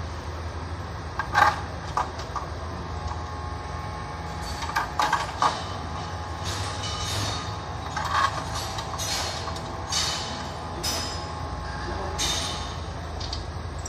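Sharp metallic clicks and clinks as a transmission filter is worked onto the exposed valve body of an automatic transmission, with a quick group of three about five seconds in, over a steady low hum.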